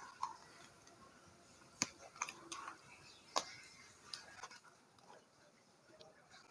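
Faint, scattered clicks and taps of a small plastic toner bottle being handled, its sealed cap being worked at.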